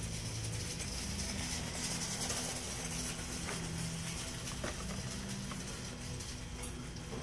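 Steady low hum of store background noise, with a few faint clicks of a blister-packed toy car card being handled on the shelf.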